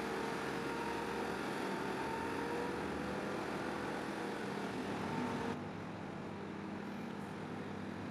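Heavy machinery engine running steadily with a faint held whine. About five and a half seconds in the sound changes abruptly and the hiss drops away, leaving a lower, quieter running sound.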